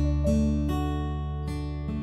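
Instrumental background music: plucked string notes over a steady low bass, with a few new notes struck in quick succession.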